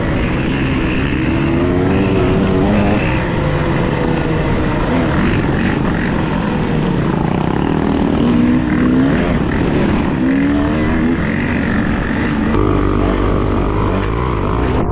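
Quad bike (ATV) engines running and revving, their pitch rising and falling over a dense rush of noise. About twelve seconds in, the sound changes to a steadier engine note with a heavier low rumble.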